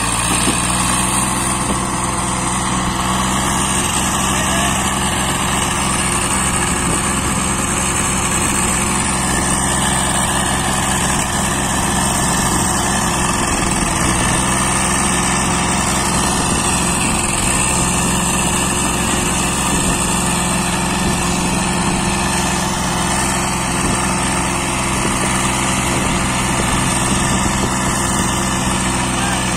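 Swaraj 855 tractor's diesel engine held at high revs under heavy load, running steadily as it strains against a fully loaded sand trolley stuck in soft sand.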